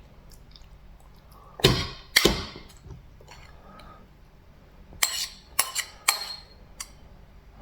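Dishes and cutlery clinking and knocking in a series of sharp strikes: two loud ones about two seconds in, then a quicker cluster of clinks a few seconds later.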